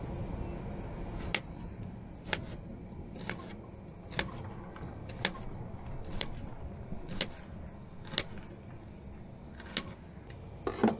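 Knife cutting through an onion onto a cutting board: a sharp tap about once a second, with a louder clatter near the end.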